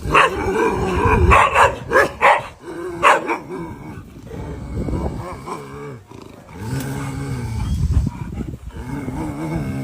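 Dogs barking at a giant lizard: quick, sharp barks for about three seconds, then longer, lower drawn-out calls, several seconds each, to the end.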